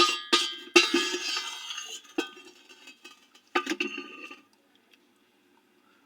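An eating utensil clinking against a dish, about five strikes each ringing briefly before dying away, with the last ring fading out about four and a half seconds in.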